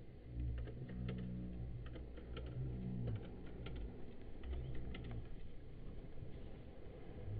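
Soft background music: a low bass line stepping between held notes, under light, irregular clicking.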